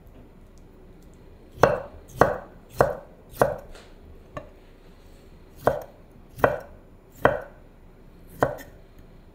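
Kitchen knife slicing bamboo shoot on a wooden cutting board: about eight separate cuts, each a sharp knock of the blade on the board. There is a quick run of four starting about a second and a half in, a light tap, then four more spaced further apart.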